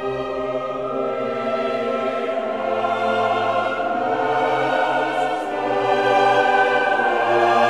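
Orchestral film-score music with a choir holding long sustained notes, slowly getting louder.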